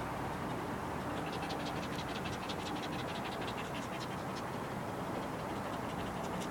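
Small dog panting rapidly after exercise, a quick even run of short breaths.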